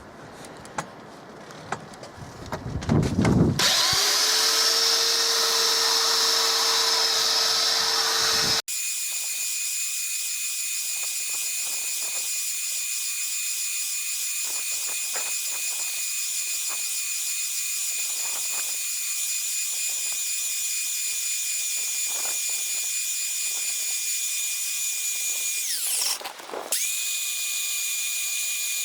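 Small electric power tool running with a steady whine, after a few handling clicks at the start. The whine spins up about four seconds in and cuts off suddenly near nine seconds, then runs on at a different pitch. Near the end it briefly slows and picks up again.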